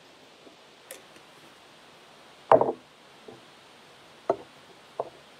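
Altar vessels being handled and set down on a table: a faint click about a second in, one loud knock about two and a half seconds in, then three lighter knocks.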